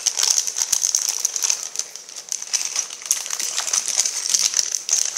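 Clear plastic Lego parts bag crinkling and rustling as it is handled, with many small crackles.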